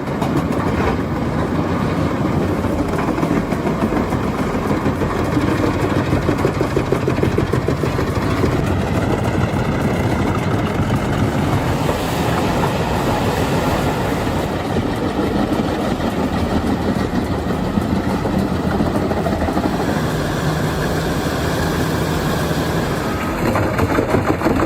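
Albach Diamant 2000 self-propelled wood chipper running steadily, with the heavy engine and chipper rotor making continuous loud machine noise.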